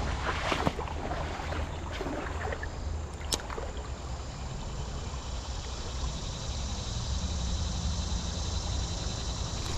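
Steady rush of flowing creek water with a low rumble under it, broken by a few light knocks.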